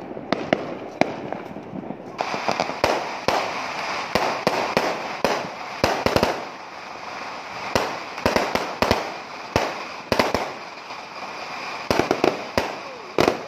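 Aerial fireworks shooting up and bursting overhead: an uneven string of sharp bangs, with a hiss between them that grows louder from about two seconds in.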